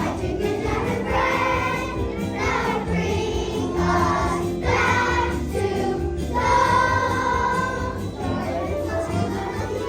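A children's choir of second graders singing a song together over musical accompaniment, holding long notes.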